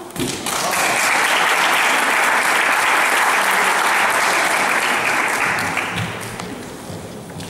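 Audience applauding: the clapping starts about half a second in, holds steady, then dies away about six seconds in.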